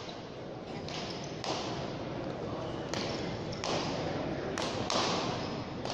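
Frontball rally: a ball slapped by hand and striking the front wall and floor, sharp smacks about once a second, over a steady murmur of spectators' voices.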